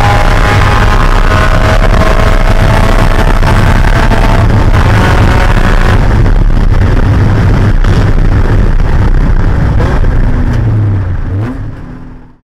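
Spec Miata race car's four-cylinder engine running, heard from inside the cockpit over heavy wind and road noise, its pitch slowly falling. The sound fades out near the end.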